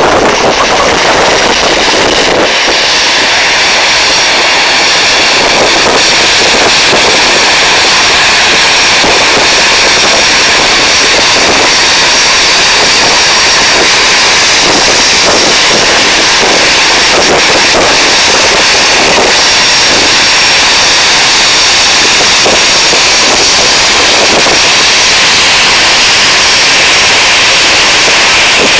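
Jet airliner engines, loud and steady.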